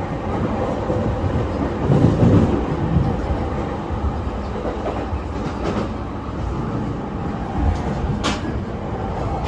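Running noise inside a JR East E231 series commuter train car, with wheels clattering over rail joints. A louder rumble comes about two seconds in, and a brief sharp click near the end.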